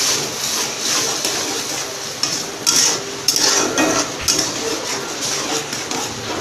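Metal spatula stirring and scraping a wet tomato-and-onion masala around a kadai, with a few sharp clinks of the spatula against the pan around the middle.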